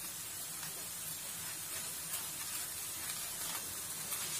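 Oil sizzling steadily on a hot tawa under a flatbread being cooked and brushed with oil.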